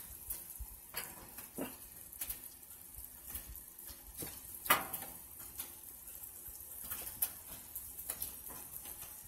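Faint, scattered clicks and knocks from a foil-lined baking pan being handled at the oven. The sharpest knock comes about halfway through.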